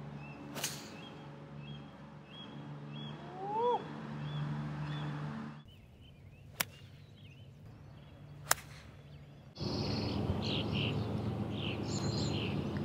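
Three sharp cracks of golf clubs striking the ball: a driver off the tee about half a second in, then an iron shot from the fairway, with another crack a couple of seconds later. Birds chirp repeatedly in the background.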